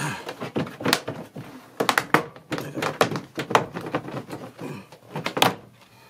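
Plastic interior trim panel being pried off a 2011 Nissan Versa's liftgate: a series of sharp clicks, snaps and knocks as its retaining clips pop loose and the panel rattles against the metal, the loudest snap about five and a half seconds in.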